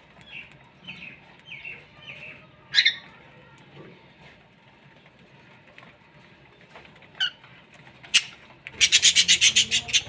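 Small parrots, budgerigars and lovebirds, giving four short chirps in the first couple of seconds, with a few sharp single clicks later on. Near the end comes a loud, rapid rattle of about a dozen sharp pulses in roughly a second.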